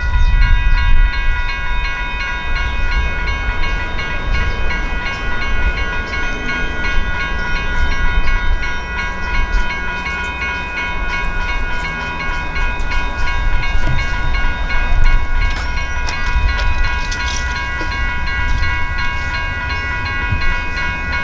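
Railroad crossing warning bells ringing steadily, starting as the crossing signals activate, with several tones overlapping, over a low rumble.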